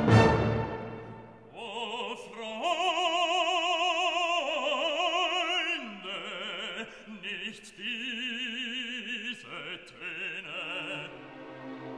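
Background music: an operatic voice singing long held notes with wide vibrato, after an orchestral chord that fades away in the first second.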